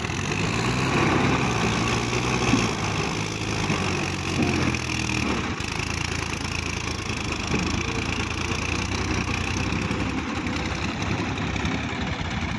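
Diesel engine of a Sonalika DI 750 III tractor running steadily while it hauls a loaded trolley through soft mud.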